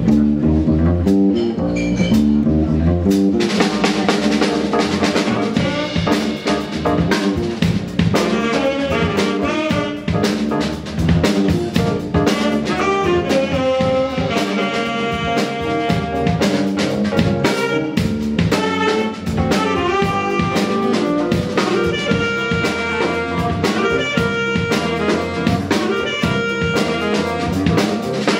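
Live jazz band playing: an electric bass line alone at first, then the drum kit and a section of saxophones come in about three seconds in, the saxophones playing the melody together over the bass and drums.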